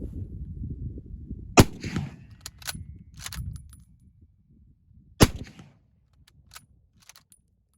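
Mosin Nagant bolt-action rifle in 7.62×54R fired twice, the shots about three and a half seconds apart, each followed by a few lighter metallic clicks of the bolt being worked. Steady wind rumble on the phone microphone underneath, dying away midway.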